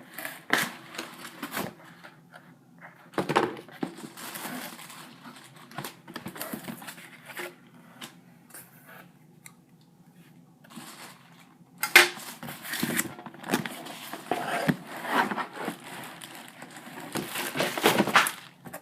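Cardboard box and packing being handled and opened: scattered rustling, crinkling and knocks, loudest about twelve seconds in and again near the end.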